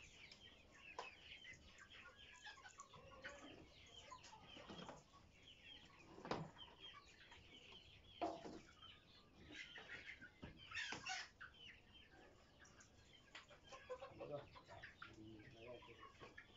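A flock of tiger chickens clucking and chirping faintly and continuously. A few sharp knocks stand out, about six, eight and eleven seconds in, as plastic crates are handled on the weighing scale.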